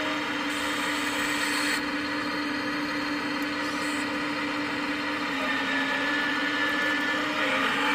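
Hydraulic pump of a 1/14-scale RC Volvo 360L excavator running with a steady whine as the arm and bucket dig and scoop soil. A brighter hiss joins in from about half a second to two seconds in, and again briefly near four seconds.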